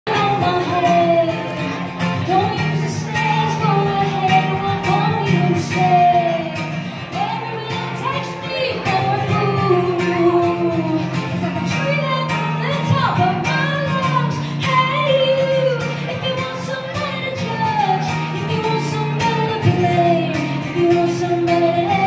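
Live music: a woman singing lead over guitar-led band accompaniment, recorded in a large hall.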